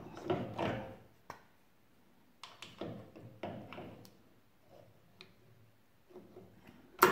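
Metal clicks and clinks of a Derbi Senda engine's clutch basket being turned by hand and worked onto its shaft as its gear teeth catch and mesh, with one sharp, loud clack near the end.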